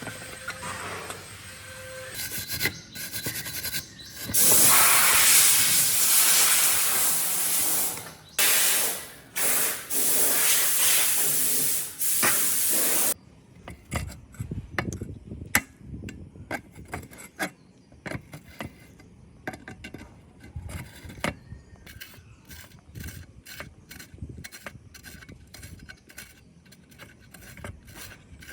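Loud hissing spray in several bursts, cutting off about halfway through, followed by quieter scattered clicks and scraping of hand tools on the saw's parts.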